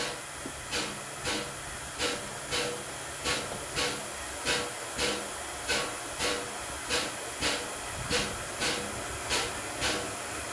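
PKP class Pt47 2-8-2 steam locomotive chuffing slowly, about one and a half even exhaust beats a second, over a steady hiss of steam as it runs into a station at low speed.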